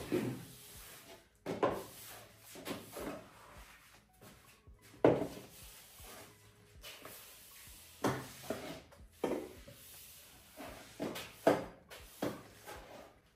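Mop pushed across a wood-look floor: rough rubbing strokes and light knocks of the mop head at irregular intervals, about one every second or two.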